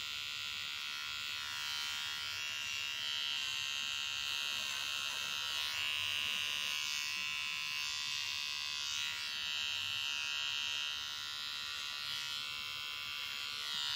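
Small electric pet trimmer buzzing steadily as it trims the fur on a Ragdoll cat's paw, its tone changing now and then as it works.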